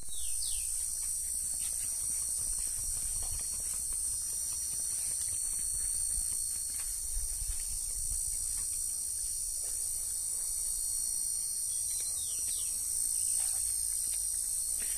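A steady, high-pitched insect chorus, like crickets, with a low rumble underneath. A few short falling squeaks come near the start and about twelve seconds in.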